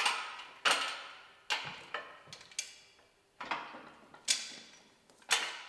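Mobile column lift raising a bus axle, its safety latch clicking as it rises: seven sharp metallic clicks about a second apart, each ringing away briefly.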